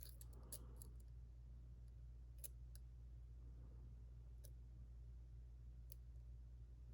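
A few faint, scattered metallic clicks from a lock-pick hook working the pin stacks inside a JPM Surf pin-tumbler cylinder, over a steady low hum.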